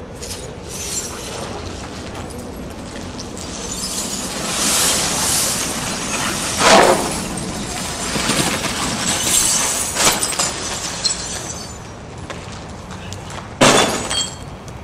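Shattered laminated windshield glass crackling and crunching as it is handled and dragged. There is a louder crunch about seven seconds in and another near the end.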